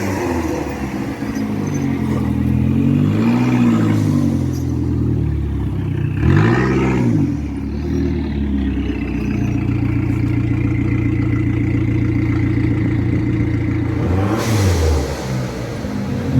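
Dodge Neon's turbocharged DOHC four-cylinder, run with no muffler, being revved in short throttle blips: a gentle rise about three seconds in, a quick sharp rev near seven seconds, a steadier stretch of running after that, and another rev near the end.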